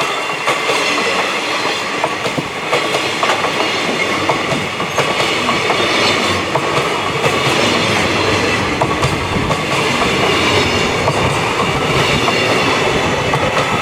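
Freight train wagons rolling past at speed, wheels clacking over rail joints with a steady rumble and a faint wheel squeal.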